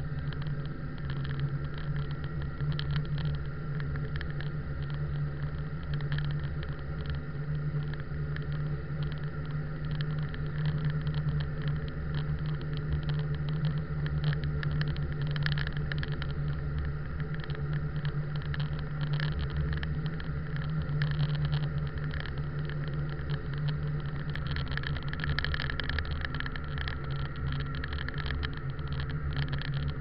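A vehicle's engine and tyres, heard from inside the cabin while it drives on a snow-packed road: a steady low drone with a crackle of small clicks over it, busier near the end.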